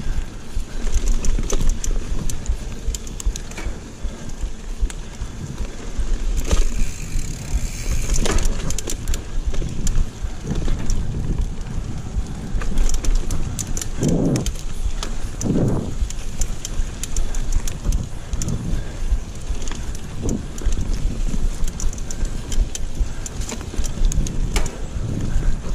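Giant mountain bike riding over dirt singletrack: tyres rolling over roots and rough ground, with the frame and chain rattling in frequent clicks and knocks over a steady low rumble. Two louder bumps come a little past the middle.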